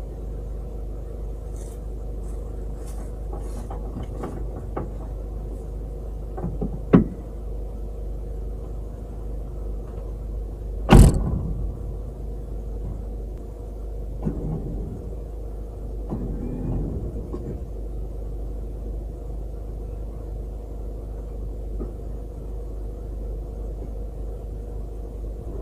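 Vehicle engine idling with a steady low rumble while the winch is readied. There is a sharp click about seven seconds in, a loud knock about eleven seconds in, and a few softer clatters after it.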